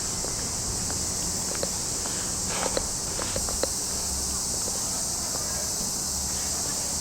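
Steady, high-pitched chorus of summer cicadas, with scattered footsteps and small ticks of someone walking on a path.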